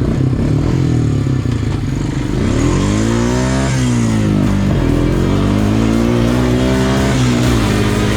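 ATV engine running steadily, revved up about two and a half seconds in and easing back down a second later.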